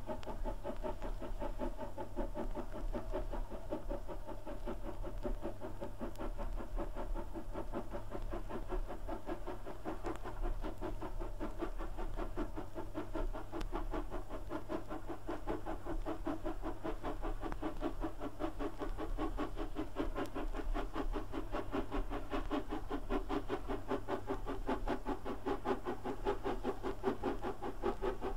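'Crab' 2-6-0 steam locomotive working a goods train on a rising gradient, its exhaust beats coming in a steady, rapid rhythm and growing louder over the second half as it draws nearer.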